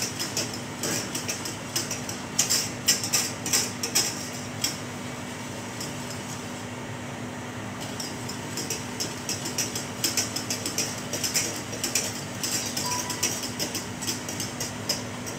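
Wire balloon whisk stirring sugar and water in a stainless steel saucepan, with rapid clinks and scrapes of metal on metal. The whisking pauses for a few seconds near the middle, then starts again.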